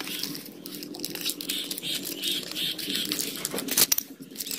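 Cardboard box and torn plastic wrapping being handled during an unboxing, a crinkly rustle with a few sharp clicks about three and a half seconds in.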